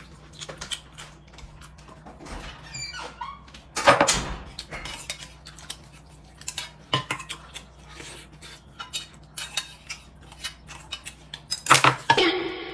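Dishes and eating utensils clinking and knocking on a dining table during a meal, in scattered small clicks, with louder clatters about four seconds in and near the end.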